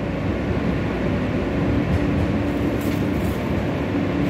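Inside an R160A subway car in motion: steady running rumble of the train on the rails, with a steady hum underneath.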